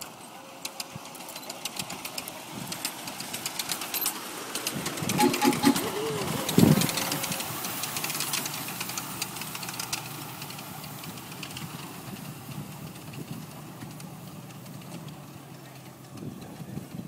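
Ride-on miniature train running on its small-gauge track, with a rapid clicking of wheels over the rails. It is loudest as it passes close about six seconds in, then fades as it runs away.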